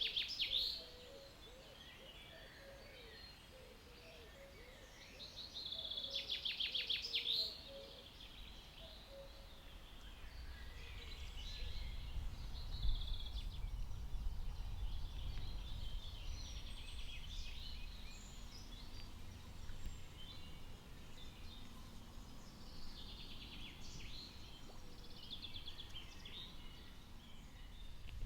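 Woodland songbirds singing: a rapid trilling song about six seconds in and again near the end, with scattered short calls between. From about ten seconds in, a low rumbling noise runs underneath.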